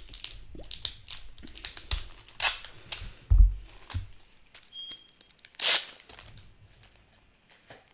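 Plastic packaging on a slime container being handled: crackly crinkling and clicks, a couple of dull knocks a little past the middle, and a louder tearing rustle a bit before the end, as the wrapping comes off.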